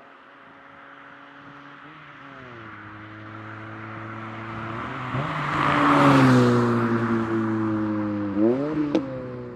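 Vauxhall VX220 sports car engine driving past: the engine note grows louder as the car approaches, peaks and drops in pitch as it passes, then revs rise quickly near the end, followed by a sharp click.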